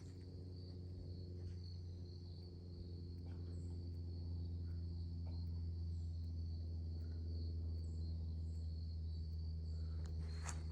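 Crickets trilling steadily in the background, with faint repeated chirps above the trill. Underneath runs a steady low hum that grows slightly louder.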